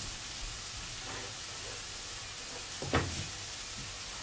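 Steady, soft sizzle of food frying in a pan on the stove, with a single knock about three seconds in.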